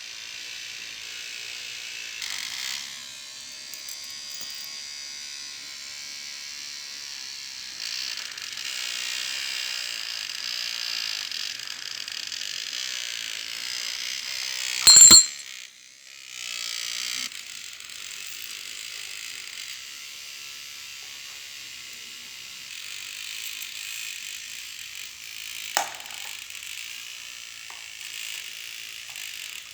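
A toy aeroplane's small electric motor and gears whirring with a steady high-pitched buzz. A loud sharp click comes about halfway through, the whirring cuts out briefly, then starts again, and a smaller click follows near the end.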